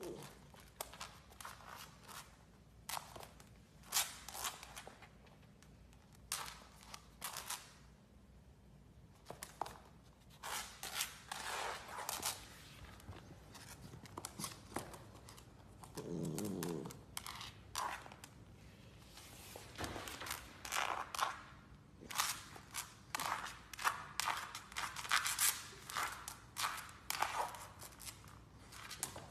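Golden Retriever puppy's claws and paws clicking and scuffing on a hard floor in many short, irregular taps, busier in the second half. About halfway through there is a short, low pitched sound.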